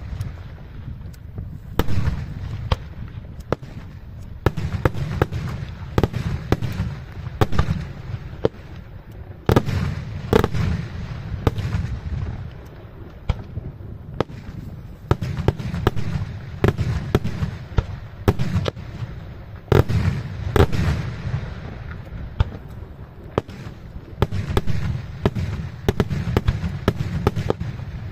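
Daytime fireworks display: aerial shells bursting in a rapid, irregular run of loud bangs, many overlapping in dense clusters, over a continuous low rumble of booms.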